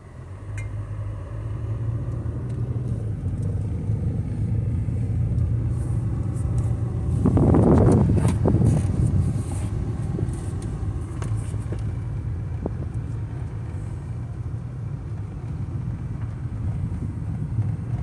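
Car driving, heard from inside the cabin: a steady low rumble of engine and tyres, swelling louder for about two seconds around seven seconds in.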